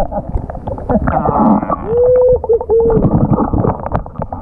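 Underwater camera audio: rumbling, sloshing water with many small clicks and knocks, and about two seconds in a muffled, drawn-out vocal call from the diver that rises and falls.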